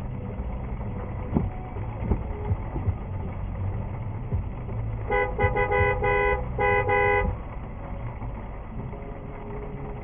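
A car horn sounds in a quick series of short honks about five seconds in, lasting about two seconds, over a steady low rumble of road traffic.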